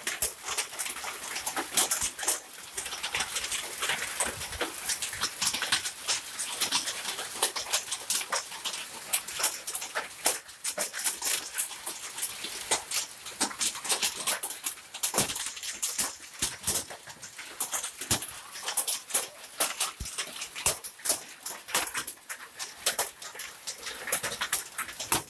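Hail pelting down: a dense, irregular clatter of hailstones striking the road and other hard surfaces over a steady hiss.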